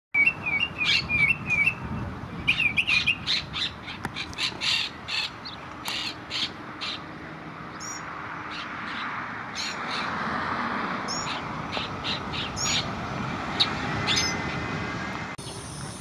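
Monk parakeet calling: a quick run of short, harsh chirps over the first several seconds, then scattered calls.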